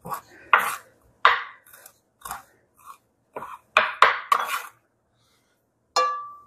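Chef's knife chopping fresh parsley on a wooden cutting board: about ten sharp, irregular strikes over four and a half seconds. After a short pause, the blade clinks against a glass salad bowl with a brief ring near the end.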